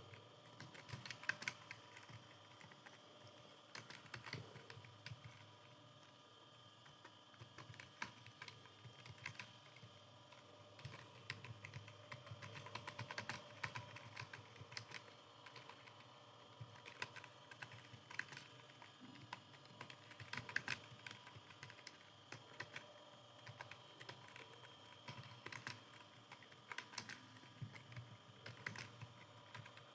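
Computer keyboard being typed on fast, with keystroke clicks in uneven runs and a short lull about five seconds in. A faint steady hum sits underneath.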